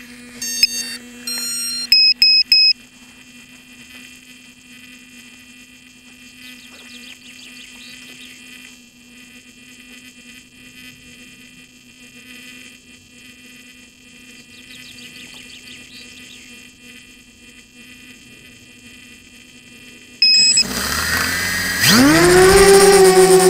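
FPV quadcopter drone: a run of short electronic beeps in the first few seconds, then a long quiet stretch with a faint steady hum. Near the end comes one more beep, and the motors spin up with a steeply rising whine that settles into a loud steady whine as the drone throttles up for takeoff.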